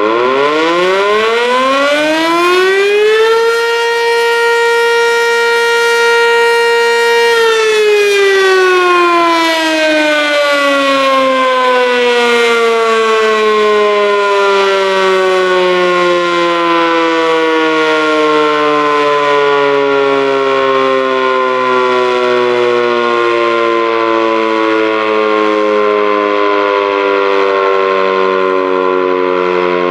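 ACA Banshee 115 three-phase electromechanical siren sounding its noon blast. It winds up in pitch for about three seconds, holds a steady tone for about four seconds, then winds slowly down and is still sounding as it coasts.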